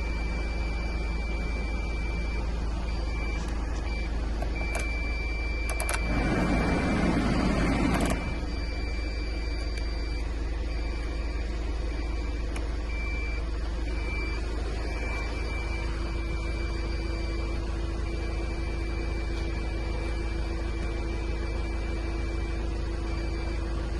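Iveco Daily 2.3-litre four-cylinder diesel engine idling steadily, with a high thin tone that keeps breaking off and coming back. About six seconds in there is a louder rush with a few clicks lasting about two seconds, and a steady hum joins about two-thirds of the way through.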